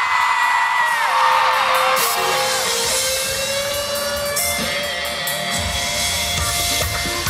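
Loud concert opening music over a crowd of fans screaming with long, high-pitched held screams. A heavy bass comes in about five and a half seconds in.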